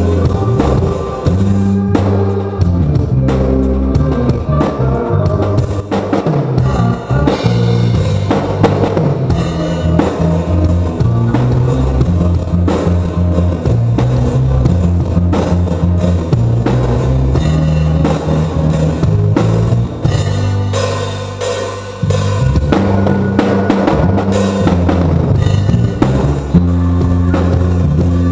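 Live band playing loud: a drum kit with kick and snare hits over low, shifting bass notes and guitar.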